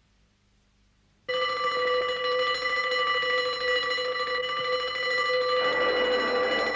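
Electric alarm bell at the fire station ringing continuously, summoning the firemen. It starts about a second in, after near silence, and stops at the end.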